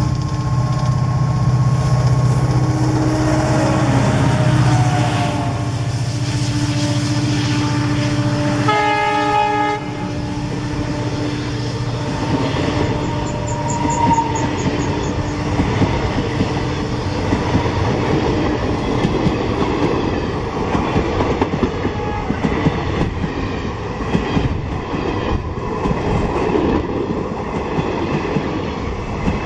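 An EMD WDP4 diesel-electric locomotive with a 16-cylinder two-stroke 710 engine runs past at speed with a passenger train. Its deep engine drone fills the first nine seconds and stops as the locomotive goes by, with a short horn note at that moment. The coaches then rush past with a rapid clickety-clack of wheels over rail joints.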